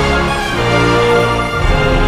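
Theme music with held chords over a steady bass line.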